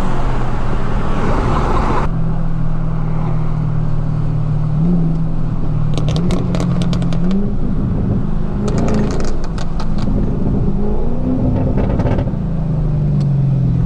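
Chevrolet Camaro engine running while driving, its pitch rising briefly several times as it is revved. Two bursts of rapid sharp clicks come about midway.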